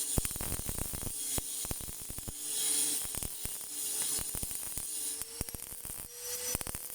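Electric welding arc from a PATON PSI-250P welding machine crackling and sizzling while welding a steel truck chassis, an uneven run of sharp pops over a hiss. A faint steady whine sits underneath.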